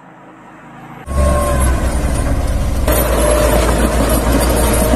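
Tractor engine running as it drives a snowplow blade through deep snow: a low, steady drone under a loud rushing noise. It cuts in suddenly about a second in.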